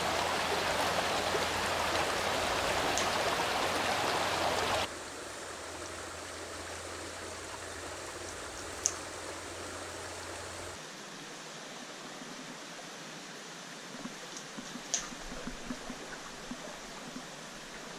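Small forest stream running steadily over rocks. The level steps down abruptly twice, about five and about eleven seconds in, with a couple of brief sharp ticks in the second half.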